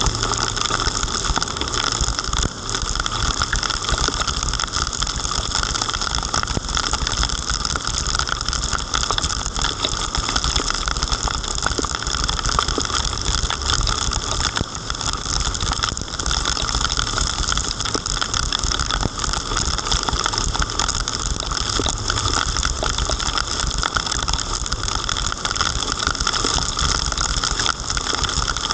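Heavy rain hitting the 360 camera's housing: a dense, steady patter of drops over a low rumble.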